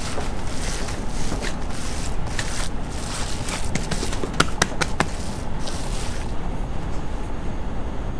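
Squishing and scraping of hands mixing minced meat in a steel bowl, with a few sharp clicks near the middle, over a steady low rumble. The squishing stops about six seconds in, leaving only the rumble.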